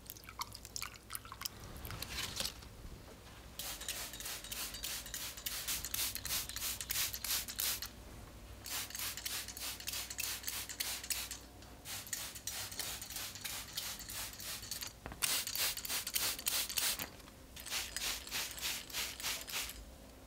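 Hand-pumped glass plant mister spraying water, a rapid series of short spritzes in several runs of a few seconds, with brief pauses between runs.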